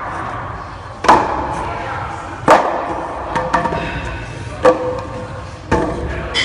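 Weight plates knocking and clanking together as they are lifted off a stacked pile one by one, about half a dozen sharp clanks with a short ring after some of them.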